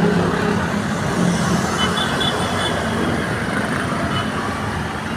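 Diesel bus engine running steadily, with road traffic noise.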